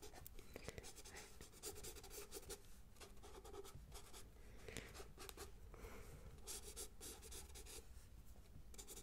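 Pencil drawing on sketchbook paper, close to the microphone: soft, quick scratching strokes following one another in an irregular run.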